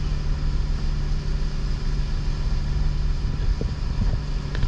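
Engine of an outrigger bangka boat running steadily, a low even hum with the rush of wind and water over it.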